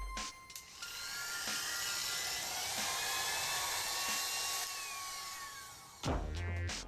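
A small high-speed electric motor whining: it spins up over about a second, runs steadily, then winds down slowly and stops.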